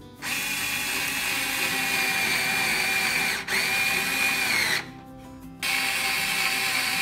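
Cordless electric screwdriver driving a thin wood screw through a metal angle bracket into wood: a steady motor whine that breaks off for an instant about three and a half seconds in, sags in pitch and stops just before five seconds in, then starts again about a second later and keeps running.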